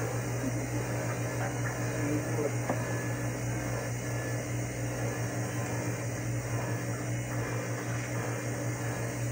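Steady electrical hum with a fan-like whirr, with a few faint light clicks.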